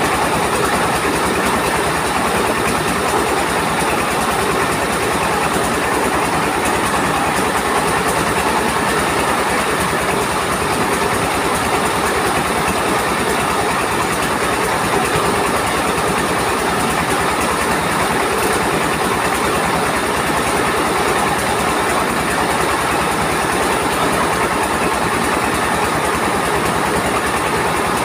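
Engine of a truck-mounted mobile rice mill running steadily, driving the belt-driven huller and polisher as grain is milled; a loud, even machine noise with no change throughout.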